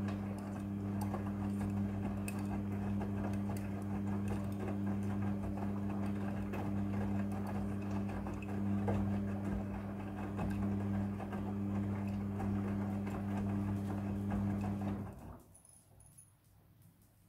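Front-loading washing machine tumbling laundry in its wash cycle: a steady motor hum with the rattle and slosh of wet clothes in the drum. It stops suddenly about fifteen seconds in, leaving only a few faint ticks.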